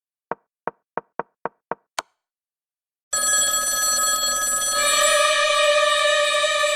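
Seven quick clacks of chess pieces set down on a board, the last one longer. After about a second of silence a steady ringing tone with many overtones sets in and grows brighter about five seconds in.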